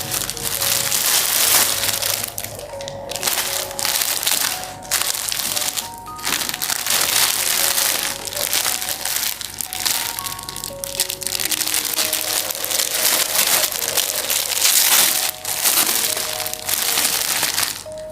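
Plastic packaging crinkling and rustling in irregular spells as a parcel is unwrapped, over background piano music.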